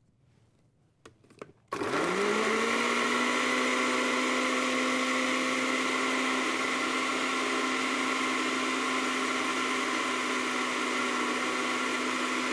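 Countertop blender switched on about two seconds in, its motor spinning up in a quick rising whine and then running steadily, pureeing cooked chicken and green beans with water.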